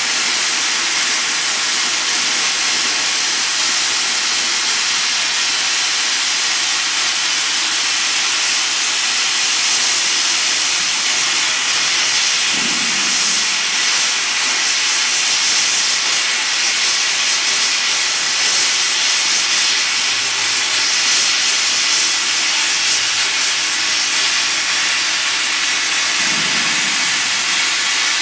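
CNC plasma torch cutting and bevelling a large-diameter steel pipe: the plasma arc gives a loud, steady hiss.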